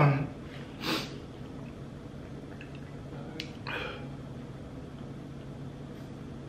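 A man coughs and clears his throat, choking on dry cornstarch. There is a loud throaty cough falling in pitch right at the start, then a short breathy huff about a second in and a weaker one nearly four seconds in.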